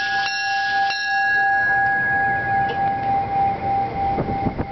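Door chimes on an NJ Transit Comet IV cab car sounding, bell-like tones struck twice in the first second, the last tone ringing on for several seconds: the warning that the doors are about to close.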